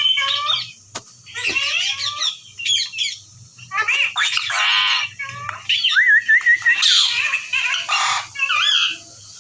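Indian ringneck parrot squawking and chattering in a quick run of short, harsh calls, with a wavering whistle about six seconds in.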